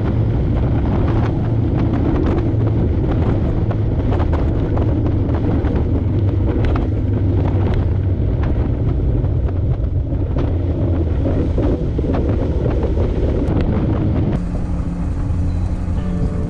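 Small boat's engine running steadily at cruising speed, with wind buffeting the microphone and the hull slapping through the chop in frequent sharp knocks. Near the end the sound cuts abruptly to a quieter, steadier hum.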